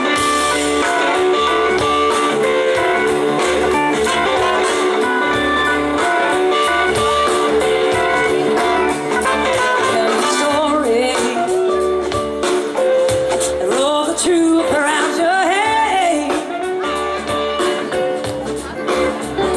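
Live blues-rock band playing: electric guitars over bass and drums, with held notes in the first half. A lead line bends and wavers in pitch through the second half.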